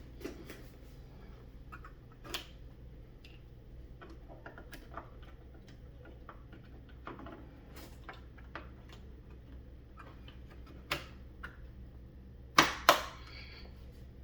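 Scattered light clicks and taps over a steady low hum, with two sharp, louder clicks in quick succession near the end.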